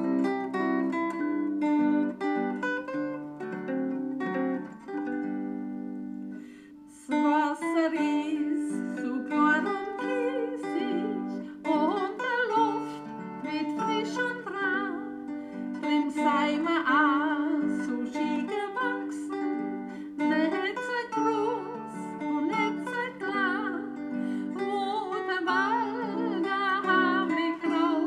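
Music with acoustic guitar picking. It breaks off briefly about six and a half seconds in, then resumes with a wavering sung melody over the guitar.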